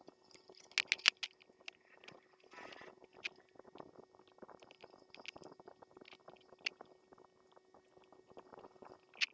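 Clicks and rustles of a plastic headphone ear cup and ear pad being handled and fitted together, with a few sharper clicks about a second in. A faint steady hum runs underneath.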